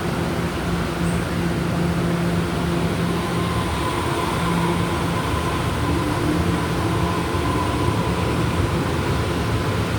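Taroko Express electric train running along the line, heard from inside the carriage: a steady rumble of wheels on rail with a faint steady whine from about three seconds in until near the end.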